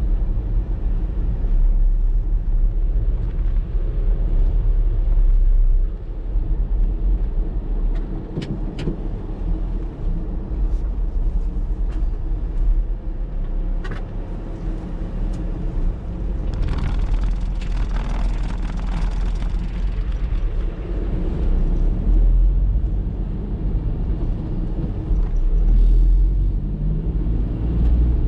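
Typhoon wind buffeting the microphone in a deep, steady rumble, over the sound of storm surf. A hissing surge rises about two thirds of the way through, and a few sharp clicks come earlier.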